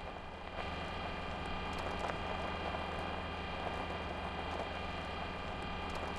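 A steady drone: several held tones and a low hum over a hiss, stepping up in level about half a second in, with a few faint clicks.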